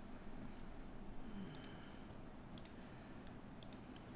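Computer mouse clicking: several separate short clicks spread over a few seconds, above a faint steady hiss.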